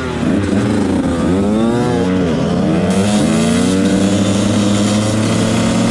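KTM 125 two-stroke motard engine revving in several quick blips, its pitch swooping up and down, then running at a steadier, slowly rising pitch.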